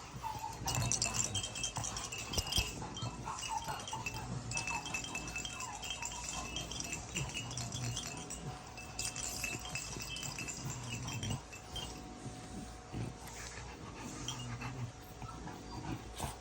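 French Bulldog puppies whining and squeaking in high, thin, wavering cries, off and on.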